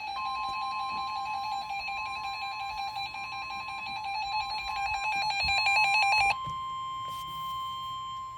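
Emergency alert attention tones: a steady single-pitch alarm tone typical of the NOAA Weather Radio warning alarm. Over it a second, lower, buzzy electronic alert tone grows louder, flutters rapidly and cuts off suddenly about six seconds in, leaving the steady tone with a faint higher tone.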